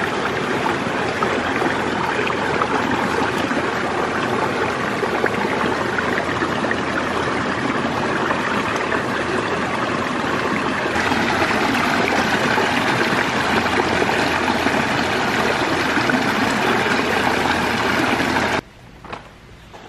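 Shallow creek water rushing steadily over rocks close by, changing slightly about halfway through and stopping abruptly near the end.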